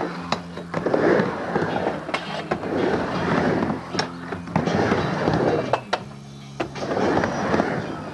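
Skateboard wheels rolling back and forth across a halfpipe ramp, the rolling rising and falling with each pass, broken by sharp clacks of the trucks and board striking the coping.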